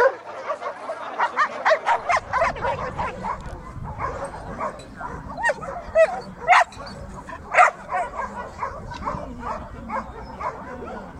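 Many Siberian laika hunting dogs barking and yelping together, short sharp calls overlapping without a break, with a few louder yelps about six and a half and seven and a half seconds in.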